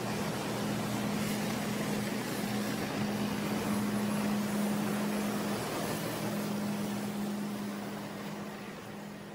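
BMPT-72 'Terminator 2' tracked armoured vehicle driving past, its diesel engine running with a steady low hum over a wash of mechanical noise. The sound fades over the last couple of seconds as the vehicle moves away.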